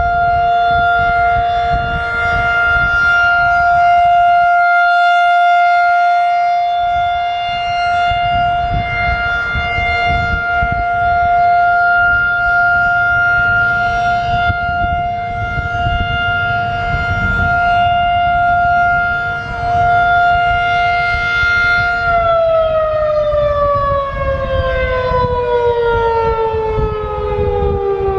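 Federal Signal 2001-DC outdoor warning siren sounding a steady Alert tone, then winding down about 22 seconds in, its pitch falling steadily as the rotor slows at the end of the test signal. Wind rumbles on the microphone underneath.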